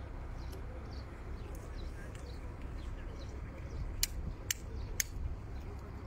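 Harbour ambience: a steady low rumble with faint, short high chirps, and three sharp knocks about half a second apart near the end.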